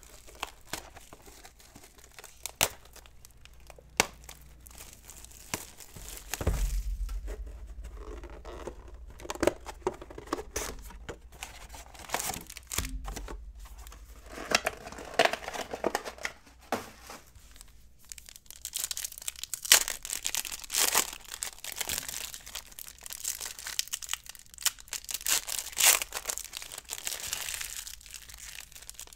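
Foil trading-card pack wrappers being torn open and crinkled by hand, with a few sharp taps early on. The crinkling is heaviest in the last ten seconds.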